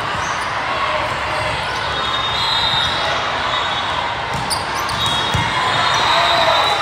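Steady din of a large hall full of volleyball courts: volleyballs being struck and bouncing, with short high squeaks of shoes on the court floor and distant voices.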